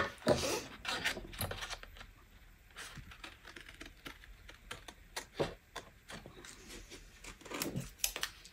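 A sheet of card rustling as it is lifted and handled, then small scissors cutting into it with scattered soft snips and clicks.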